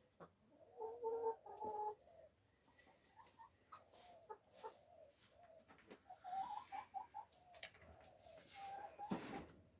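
Backyard hens clucking in short runs of calls, the busiest about a second in and again around six to seven seconds in, with a few sharp knocks, the loudest near the end.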